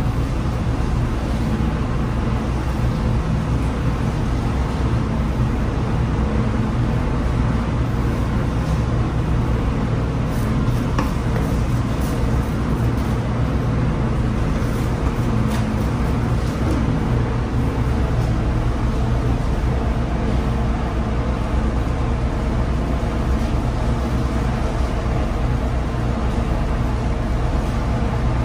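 Steady low drone of a ship's machinery and ventilation, holding an even level without letting up.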